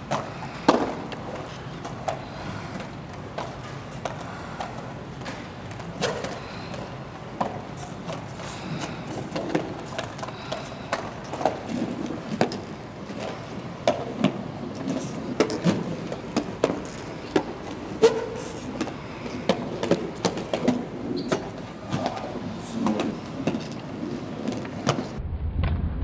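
Quad roller skates rolling over a wooden rink floor, with frequent irregular clicks and knocks as the wheels and boots strike and turn on the boards. Near the end the sound turns muffled with a low hum.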